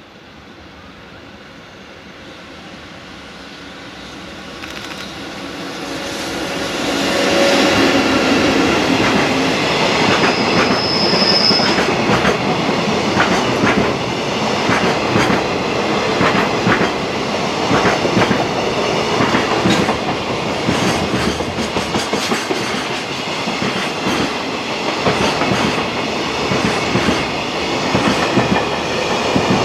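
EF65 electric locomotive hauling a long freight train of container flat wagons passing close by. The rumble builds to full loudness about seven seconds in, then holds as a steady rumble with the clickety-clack of wagon wheels over rail joints. There is a brief high wheel squeal shortly after the peak.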